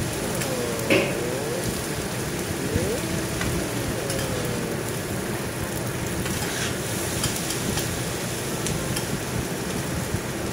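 Fried rice sizzling on a hot steel teppanyaki griddle while metal spatulas scrape, chop and tap against the plate, with scattered sharp clicks, the loudest about a second in.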